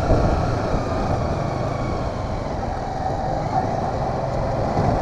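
Motorcycle engine running steadily at low road speed, heard close up from the rider's seat.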